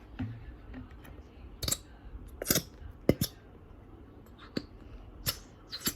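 A squeezed plastic bottle of glow-in-the-dark glue giving about seven short, sharp squirts and clicks as the last of the glue is forced out.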